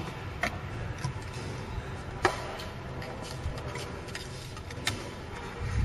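A few sharp clicks and taps from shower-cabin parts being handled during assembly, the loudest about two seconds in, over a low steady background rumble.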